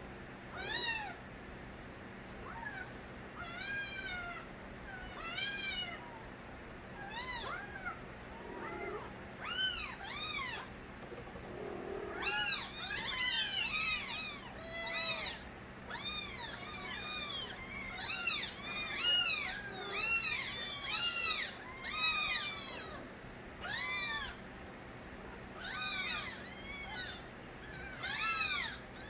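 Several young kittens meowing, loud high-pitched cries that rise and fall in pitch. The calls come one at a time at first, then pile up and overlap from about halfway on.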